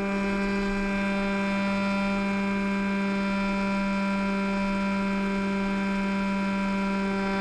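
Electric motor and propeller of a Lanyu FPV Ranger RC plane running at steady throttle in flight, heard close up from on board; a loud tone with many overtones holding one even pitch throughout.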